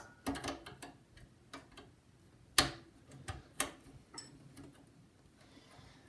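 Irregular clicks and taps of a screwdriver working the screws of a CPU heatsink fan, with a sharper knock about two and a half seconds in and another a second later.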